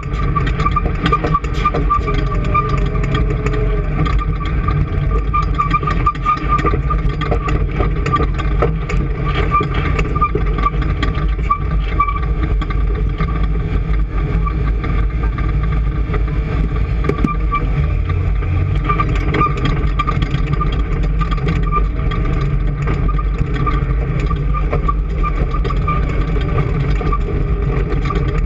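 An engine running steadily at a constant speed, with a steady high whine and a continuous light ticking over its low running note.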